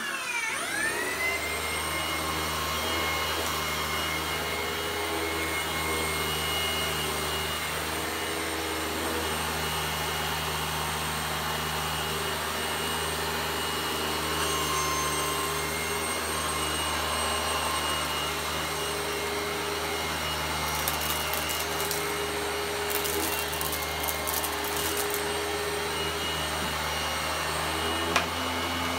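Vintage vacuum cleaner motor running steadily with a whine; its pitch drops and settles in the first second. The motor's bearings need oiling, by the owner's judgement. A click comes near the end.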